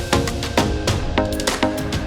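Background music with a steady percussive beat and pitched chords.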